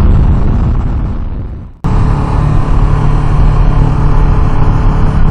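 Kawasaki Ninja motorcycle riding noise, wind rush over a steady engine note, that fades away over the first couple of seconds to a moment of near silence. It then cuts back in suddenly at a steady cruise.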